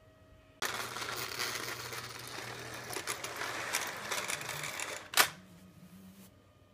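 HO scale model train running close by on its track: a rattling clatter of wheels with a low motor hum, starting suddenly, with one sharp knock about five seconds in before it drops away.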